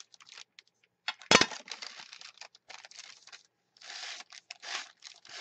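Paper journal pages rustling and an ink pad rubbed and dabbed along their crumpled edges, in a string of short scraping strokes. A single sharp click or knock about a second in is the loudest sound.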